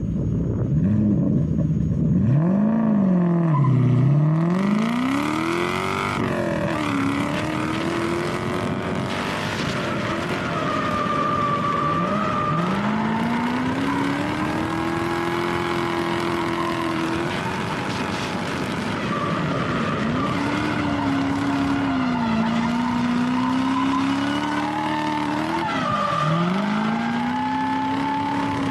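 Lexus SC400 drift car's engine revving hard through a drift run. Its pitch repeatedly climbs, holds at high revs for a few seconds, then dips, over a steady rush of tyre noise and skidding.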